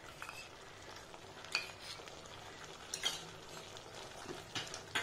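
Thick chili sauce sizzling and bubbling in a nonstick pan while a silicone spatula stirs it, with a few short, sharp scrapes of the spatula against the pan about a second and a half apart.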